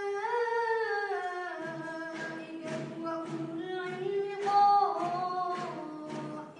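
A boy's high voice chanting melodically without accompaniment, in long held notes that glide up and down, with short hissing consonants breaking in every half second or so after about two seconds.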